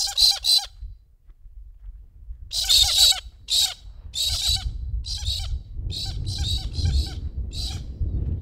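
Galahs giving harsh, screechy squawks: three quick calls at the start, then a string of about nine more after a short pause. A low rumble underneath grows louder over the last few seconds.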